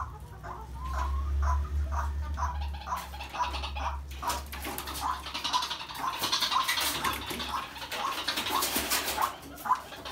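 White-breasted waterhen (ruak-ruak) giving short, repeated calls, about two to three a second. A rough hissing or rustling noise joins about four seconds in.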